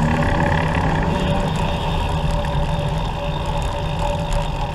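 Steady road and rolling noise from a recumbent trike on the move: a low even hum with a faint steady whine above it.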